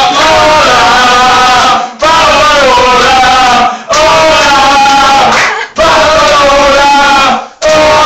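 Several men singing loudly together, a drawn-out chant in phrases of about two seconds, each ending in a brief break before the next.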